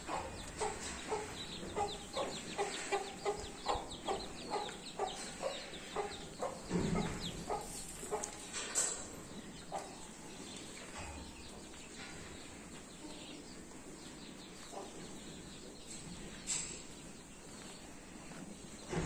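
A chicken clucking over and over, about two short clucks a second, with some thin high chirps; the clucking dies away after about nine seconds.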